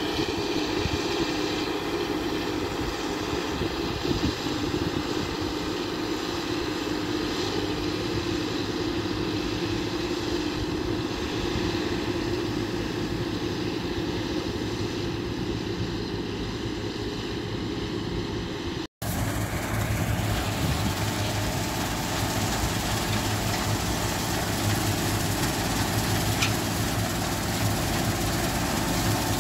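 New Holland TC5050 combine harvester running steadily, a constant engine and machinery drone. The sound drops out for an instant about two-thirds of the way through, then carries on with a slightly changed tone.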